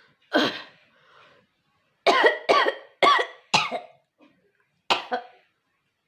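A woman coughing deliberately to bring up phlegm: one cough, then a quick run of four coughs, then one more near the end.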